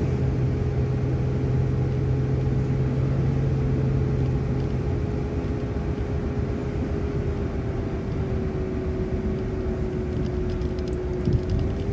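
City transit bus driving, heard from inside: steady engine and road rumble with a constant whine over it. A deeper hum drops away about five seconds in.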